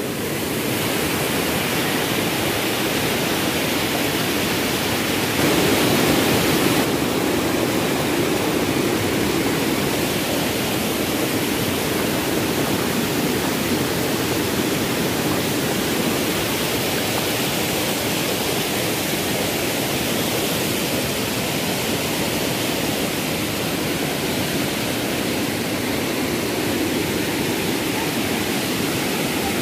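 Waterfall rushing: a steady wash of falling water. It swells briefly about five seconds in.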